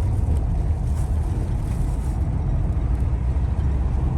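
Car driving on the road, heard from inside the cabin: a steady low rumble of engine and road noise.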